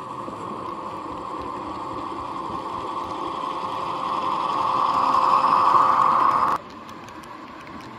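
Model DSB MY 1148 diesel locomotive running past with its train, a steady mechanical hum that gets louder as it comes close and then cuts off suddenly near the end.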